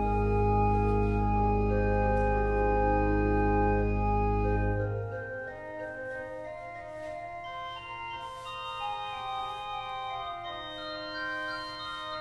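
Church organ playing a prelude: held chords over a deep bass, which drops out about five seconds in, leaving softer sustained notes higher up.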